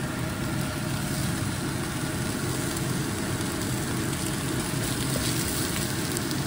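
Sausage pieces, onions and peppers frying in a non-stick wok: a steady sizzle with a few faint crackles over a low, steady rumble.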